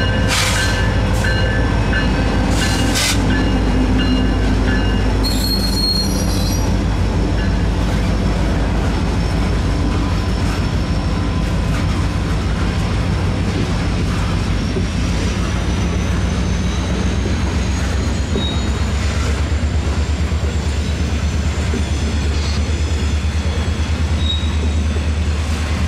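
A CSX freight train passing close by. The diesel locomotive's engine is heard first, then the boxcars and refrigerated cars roll past with high-pitched wheel squeal and a steady rhythmic clatter of wheels over the rails.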